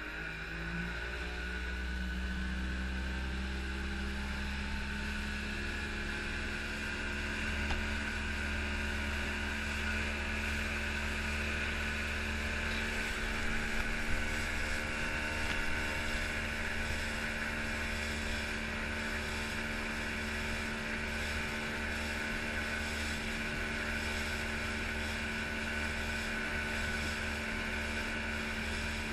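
90hp Mercury two-stroke outboard engine accelerating over the first couple of seconds, its pitch rising, then running steadily at planing speed under the load of towing two ski tubes.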